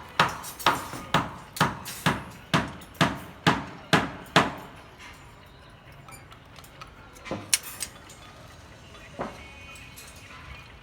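A hammer striking in a steady run of about ten blows, roughly two a second, each with a short ringing tail. The blows stop about four and a half seconds in, leaving a few scattered knocks.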